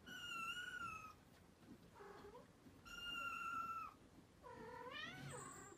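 A cat meowing in three long, high calls of about a second each, with a short, lower call between the first two. The last call rises and then falls in pitch.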